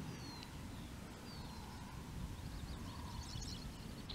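A low, uneven rumble under open-air noise, with songbirds calling over it: two short falling whistles in the first second and a quick burst of chirps about three seconds in.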